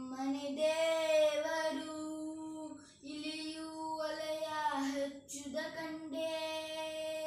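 A boy singing a Kannada song without accompaniment, in three long held phrases with brief breaks for breath about three and five seconds in.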